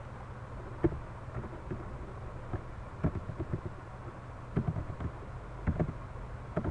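Computer keyboard keys clicking in short, irregular strokes as text is typed, over a steady low hum.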